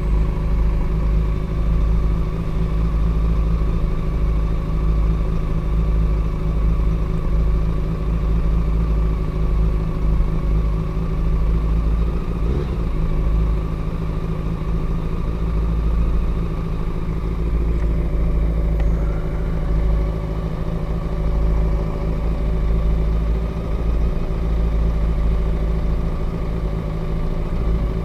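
Engines idling steadily in stationary traffic: a Honda CBR400RR's inline-four and a bus idling right alongside, with a deep rumble underneath.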